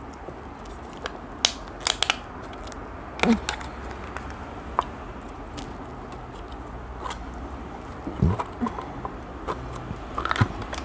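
Scattered light clicks and crackles of a plastic yogurt cup being handled and its peel-off lid pulled open, over a faint steady low hum.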